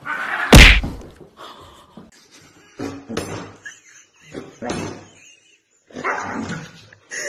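Dogs barking: one loud bark about half a second in, then three shorter bursts of dog vocalizing, about one and a half seconds apart, as two huskies spar face to face.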